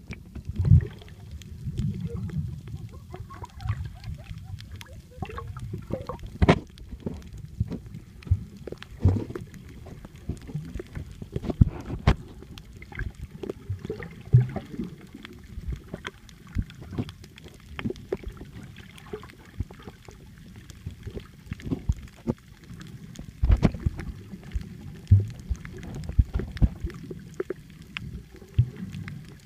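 Muffled underwater sound picked up by a phone held below the surface: a low rumble of moving water and bubbles, broken by many irregular clicks and knocks.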